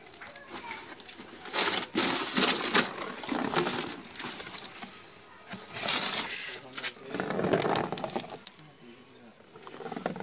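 Cardboard box being handled and opened: irregular rustles and scrapes of the cardboard, loudest about two seconds in and again around six seconds.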